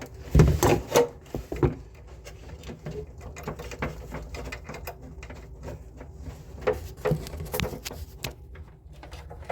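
Scattered knocks and clicks of hard parts being handled, in two busy clusters near the start and about seven seconds in, over a steady low hum.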